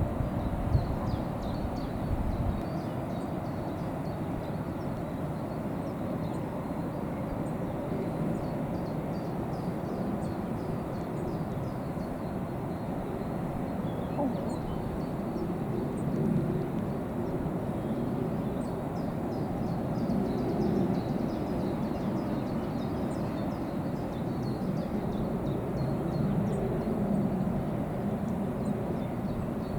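Waterfall: a steady rush of falling water, with faint high ticks and chirps over it. Low wind rumble on the microphone fades out after the first couple of seconds.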